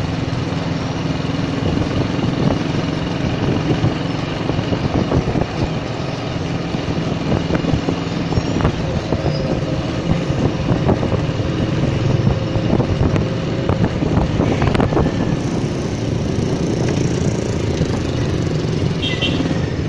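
Motorcycle engine running steadily while riding slowly, mixed with road noise and the engines of other motorcycles passing in traffic.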